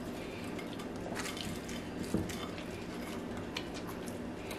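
Quiet handling of flaky puff pastry: a butter knife cutting and breaking a baked pastry, with faint crackles and small clicks and a soft knock about two seconds in, over a steady low hum.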